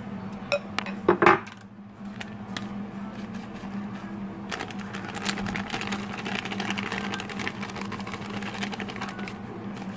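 Kitchen utensils clink sharply against dishes a second or so in. Later comes a run of light rustling and crackling as grated cheese is handled and sprinkled over a pie in a glass baking dish. A steady low hum sits underneath.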